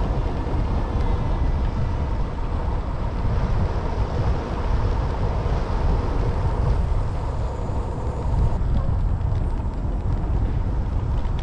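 Steady wind rumble buffeting an action camera's microphone as the camera moves along a street.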